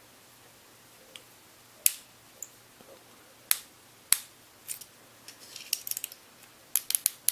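Scattered sharp clicks and taps of small metal tools and parts being handled during an AR-15 trigger install: an Allen wrench and trigger set screws. A few single clicks come first, then quick runs of clicks in the second half.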